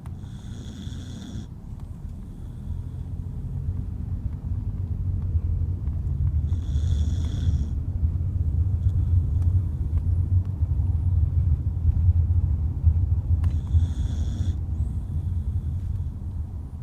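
A sleeping corgi snoring: a low, rumbling snore that grows louder through the middle. Three times, about seven seconds apart, a brief higher whistling tone sounds over it.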